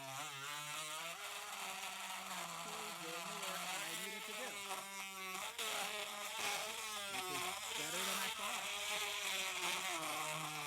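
Harbor Freight Drill Master 12-volt rotary tool's small motor whining as it drills a hole in plastic, its pitch repeatedly sagging and recovering as the bit loads up: the weak motor bogs down under pressure.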